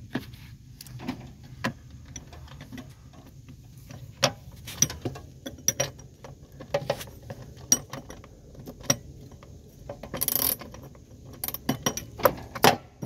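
Ratchet socket wrench clicking on a bolt at a lawn tractor's mower-deck pulley, with scattered metal clinks and knocks. The clicks come irregularly, with a short rasping run about ten seconds in and the loudest knocks near the end.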